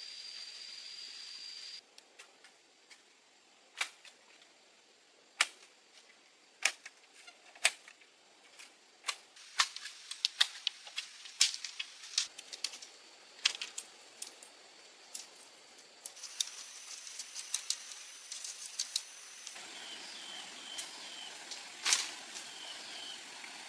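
Irregular sharp clicks and knocks, sometimes several in quick succession, over quiet background. Near the end, high steady tones and a few short repeated chirps join in.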